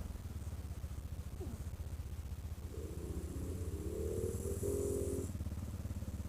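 ATV engine running in snow, its pitch rising as it revs up about three seconds in, holding briefly, then dropping back near the end.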